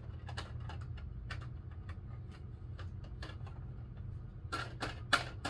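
Hard plastic parts of an XSHOT toy dart blaster clicking as they are pushed and snapped together: scattered light clicks, then a quick run of louder snaps near the end.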